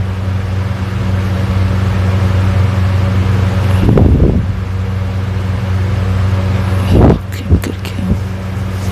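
A sleeping person snoring: one long snore about four seconds in, then a short, louder snore about seven seconds in followed by two small ones, over a steady low hum.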